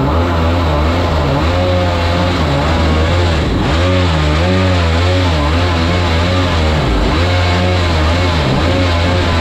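Mini jet boat's supercharged Rotax engine running hard, its revs rising and falling over and over.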